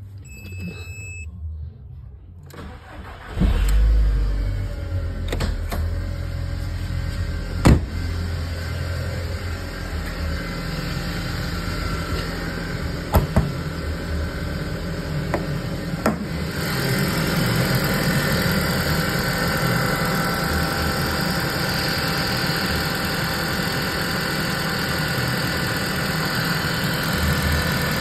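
Audi TT 225 Quattro's replacement BAM 1.8-litre 20-valve turbocharged four-cylinder cranking and catching about three seconds in on its first start after the engine swap, flaring briefly, then settling into a steady idle. A short electronic chime sounds before the crank, and a few sharp knocks come through the idle. A little past halfway the idle turns louder and brighter.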